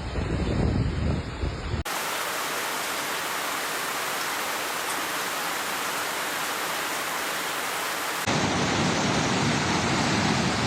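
Flood and storm noise in three abruptly cut segments. First comes a low, gusty rush of water with wind on the microphone; about two seconds in it cuts to a steady, even hiss of heavy rain. Near the end it cuts again to louder, fuller rushing water.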